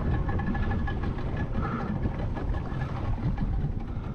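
A small fishing boat's engine running steadily, a continuous low drone with no change in speed.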